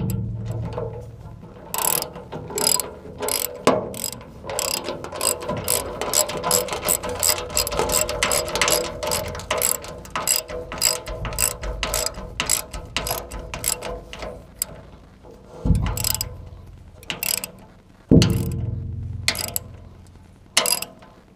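Socket ratchet wrench clicking in rapid runs as it is swung back and forth, tightening the nut on a concrete anchor bolt through the floor of a steel safe. Near the end the clicking stops and a couple of heavier knocks sound.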